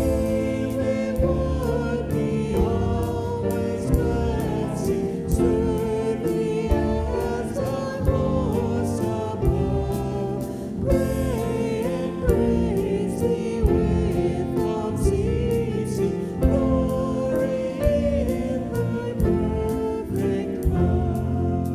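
Contemporary Christian worship song: a small group of singers on microphones sings together over piano and guitar.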